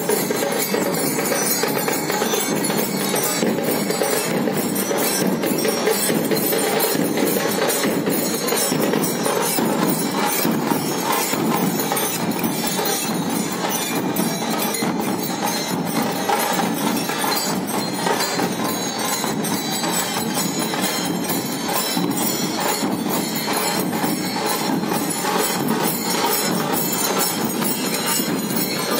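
Nashik dhol band playing: large barrel drums beaten together in dense, continuous drumming that never pauses.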